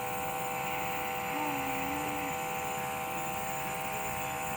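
Nebulizer compressor running with a steady buzzing hum. A child makes one short vocal sound about a second and a half in.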